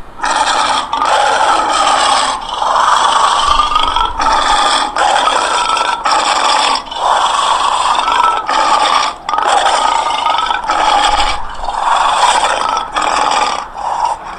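An animal calling over and over in harsh, raspy calls, each lasting about half a second to a second, with short breaks between them.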